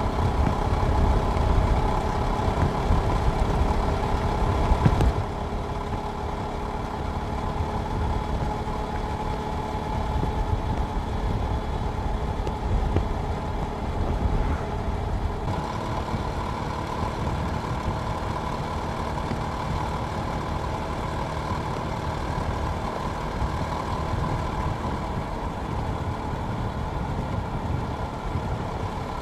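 Jawa Perak motorcycle's single-cylinder two-stroke engine running, louder and rougher for about the first five seconds, then steadier after an abrupt change.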